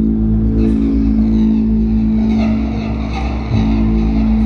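Ambient electronic music: a sustained synthesizer drone over deep bass, the low chord shifting about three and a half seconds in, with a faint ticking pattern high above from about halfway through.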